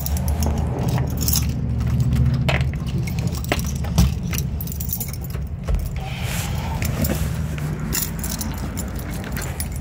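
Keys jangling with scattered clicks and a couple of sharp knocks, over a steady low rumble from the phone being handled.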